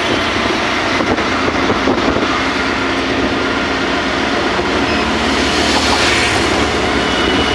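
Auto-rickshaw moving at speed: its small engine running steadily under loud wind and road noise coming through the open sides of the cabin.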